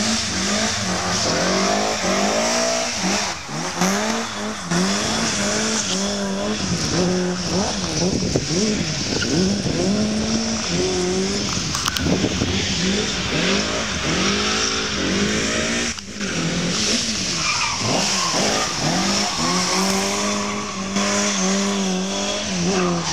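Rally car engine driven hard, its revs repeatedly climbing and falling back as the driver accelerates, shifts and lifts, over a steady high hiss of tyre noise.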